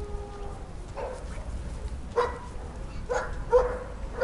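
A dog barking: about four short barks roughly a second apart.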